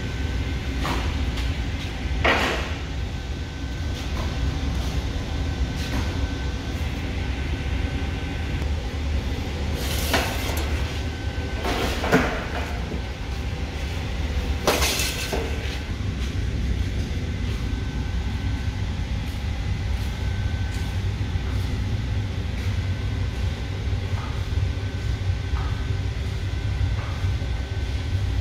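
Metal baking trays knocking and scraping as they are slid into a metal rack, several times, most between about ten and fifteen seconds in, over a steady low machine hum.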